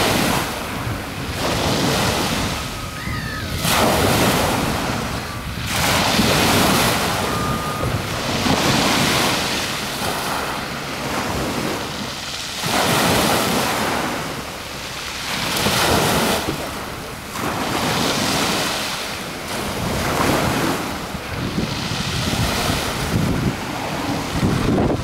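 Small waves washing onto the shore in surges every few seconds, with wind buffeting the microphone.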